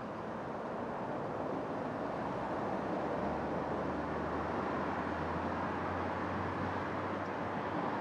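A large flock of white-cheeked starlings chattering together in a dense, continuous din. A low steady hum joins about three seconds in.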